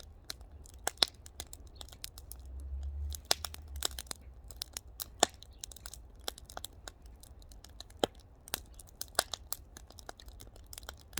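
Firewood fire crackling, with irregular sharp pops and snaps scattered throughout. A low rumble swells briefly about two to three seconds in.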